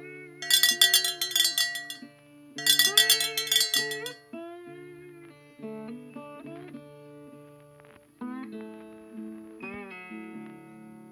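Plucked-string instrumental music, guitar-like, with sliding notes and two loud strummed bursts about half a second and two and a half seconds in.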